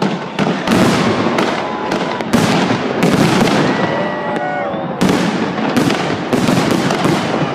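Holiday fireworks salute: aerial shells bursting in a dense run of bangs, several a second, each followed by a reverberating tail, with a strong burst about five seconds in.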